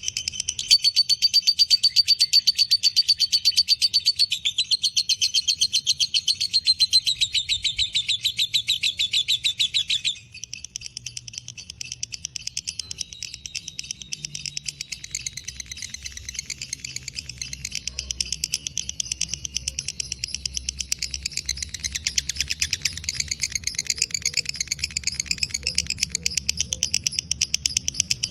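Lovebird giving a long 'ngekek': a fast, unbroken chattering trill, loud for the first ten seconds or so, then cutting back to a quieter chatter that carries on.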